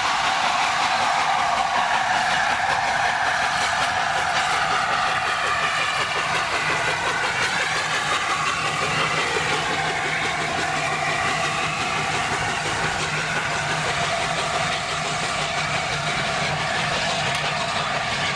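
LNER A4 streamlined steam locomotive hauling a passenger train past, its exhaust and the coaches' wheels on the rails making a steady, continuous noise.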